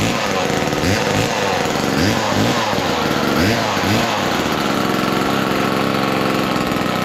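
Homelite Super 2 two-stroke chainsaw running, revved in short throttle blips roughly once a second for the first four seconds, then held at a steady speed.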